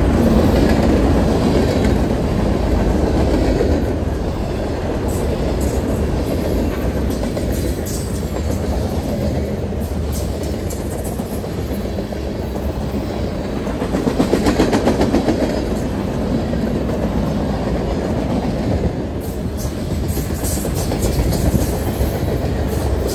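Freight cars of a long mixed freight train (tank cars, covered hoppers, centerbeam flatcars) rolling past: a steady rumble of steel wheels on rail with clickety-clack over the rail joints, swelling louder for a second or two about two-thirds of the way through.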